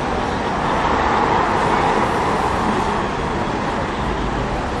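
Road traffic on a busy city street: a steady mix of car engines and tyre noise, swelling a little for a couple of seconds about a second in as vehicles pass close by.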